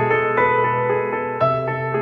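Background instrumental music, with new notes or chords struck every half second to a second.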